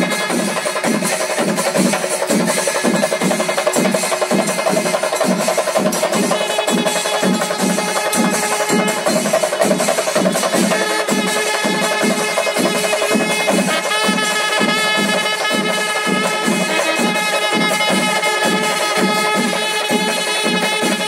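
Drum-led music: a steady, even beat of about two to three drum strokes a second, with a sustained piping melody that comes in about six seconds in and grows stronger about fourteen seconds in.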